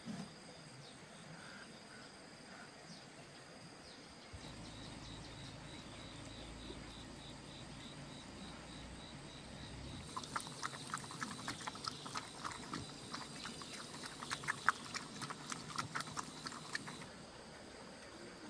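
Dog eating from a bowl of noodles: a run of quick, irregular chewing and lapping clicks from about ten seconds in, stopping a second or so before the end.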